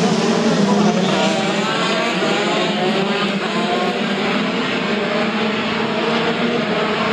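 A pack of 125cc two-stroke racing karts running together at high revs, many engine notes overlapping, with pitches rising as drivers accelerate.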